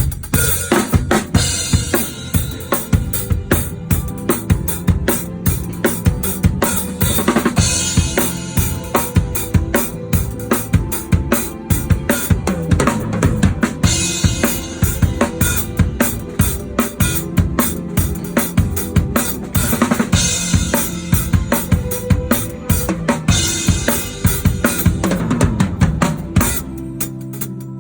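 Full drum kit played through a band arrangement: a steady kick and snare groove with a crash cymbal every few bars, the rest of the band sounding underneath. About a second before the end the drums stop, leaving a held note from the band.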